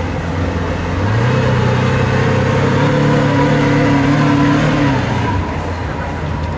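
Lamborghini Aventador LP700-4's 6.5-litre V12 engine running at low revs. About a second in the note rises to a steady higher pitch and holds for about four seconds, then drops back near the end: a light, gentle acceleration.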